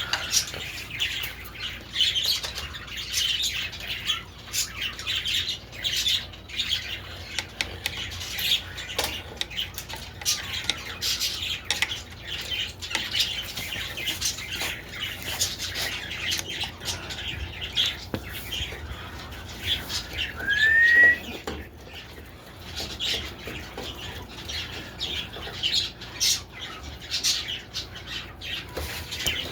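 Birds chirping in the background, with many short clicks and knocks. One clear rising chirp comes about twenty seconds in.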